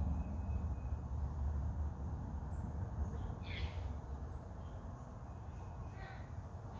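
Woodland ambience: a steady low rumble with a few short bird chirps and calls over it, one about halfway through falling in pitch.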